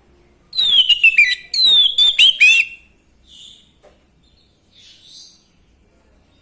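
Orange-headed thrush (anis merah) singing: two loud, rapid phrases of rich whistled notes that slide downward in pitch, in the first three seconds, followed by a few faint short calls.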